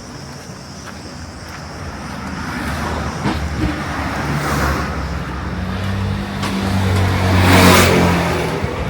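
A car passing close by: engine and tyre noise build over several seconds to their loudest near the end, then begin to fade. Cicadas buzz in the background at first.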